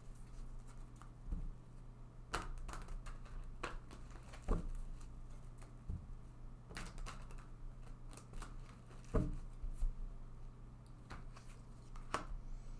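Tarot cards being handled, drawn and laid down on a table: irregular soft taps and flicks, about ten over the stretch, over a steady low hum.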